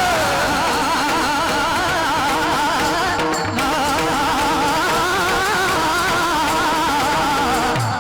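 A high male voice singing a devotional kirtan line, holding long, unbroken notes that waver and ornament quickly up and down over a steady drone.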